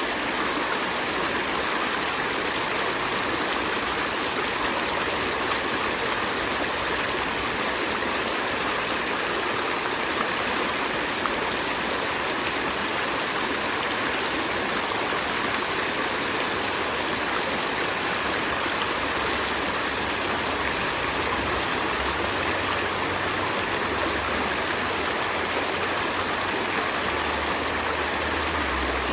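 A river stream flowing steadily, its water running and rushing over stones in an even, unbroken wash of sound.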